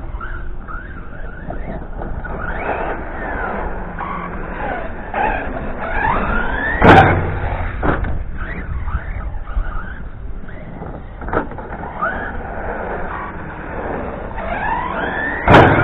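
Radio-controlled buggy's electric motor whining as it is revved up and down over and over. Two loud knocks come about seven seconds in and near the end.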